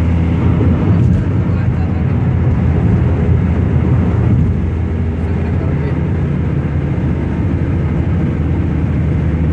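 Steady road noise inside a car cruising on a highway: a low rumble of tyres and engine that holds at much the same level throughout.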